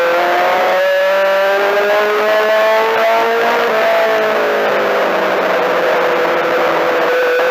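Four-cylinder Mini-Stock race car engine heard from inside the car. Its pitch climbs under throttle for about four seconds, falls as the driver lifts for the turn, then climbs again near the end.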